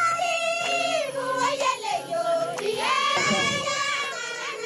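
A group of Samburu women singing together in high voices, holding long notes, with the melody rising to a higher held note about three seconds in.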